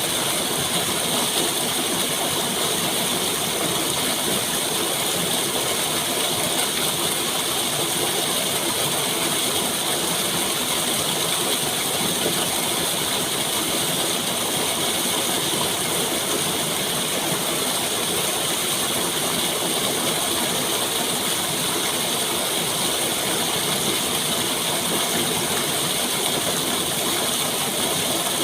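Steady rushing water, a constant hiss with fine splashing crackle and no change in level.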